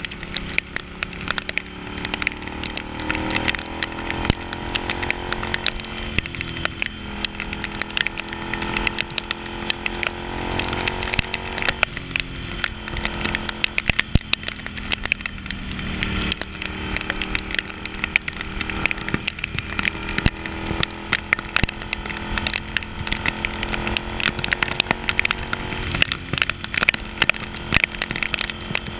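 Ducati Hypermotard's L-twin engine running under way, its pitch climbing as it pulls and then dropping back several times, over wind noise. A dense, constant crackle of sharp ticks runs through it, from raindrops hitting the camera.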